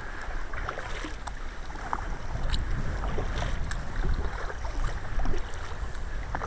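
Sea kayak being paddled: paddle blades dipping and splashing in the water in scattered short splashes, over a steady low rumble of wind on the microphone.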